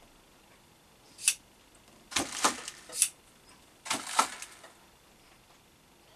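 Sharp metallic clinks and rattles of metal tools or parts being handled and set down: a single clink about a second in, a quick rattling cluster around two to three seconds in, and another cluster around four seconds in.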